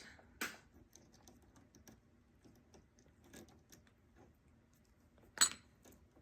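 Faint handling noise at a sewing machine: scattered small clicks and taps while thread is being cleared, with a sharp click about half a second in and a louder click a little after five seconds.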